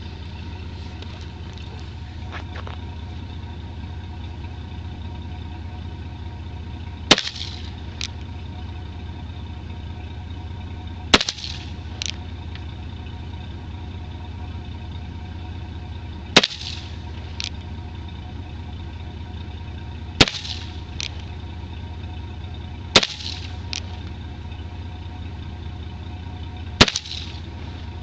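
An 1860 Colt Navy black-powder cap-and-ball revolver fired six times, a few seconds apart. Each shot is followed by a fainter crack about a second later, with a steady low hum underneath.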